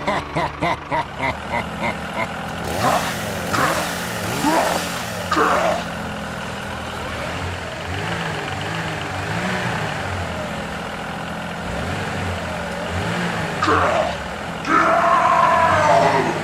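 A motor running with its pitch wavering up and down as the revs rise and fall. Short high chirps sound several times over it, and near the end comes a louder pitched sound.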